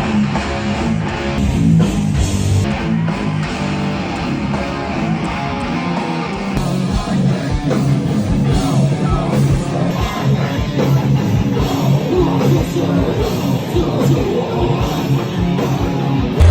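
Loud heavy rock music with guitars and a drum kit playing throughout.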